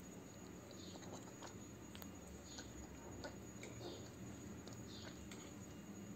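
Faint brushing of a paintbrush over a stone, filling it in with black paint: a few short, soft scratchy strokes about a second apart, with small light ticks in between.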